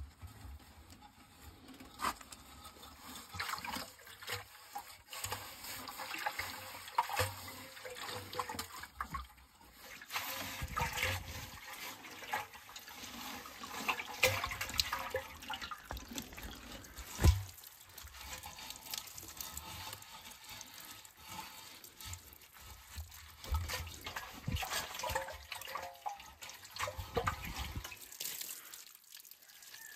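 Wet chenille cleaning mitt scrubbing and wiping the rusty inside of a steel accumulator tank through its flange opening, with water sloshing and dripping in irregular strokes. One sharp knock a little past halfway.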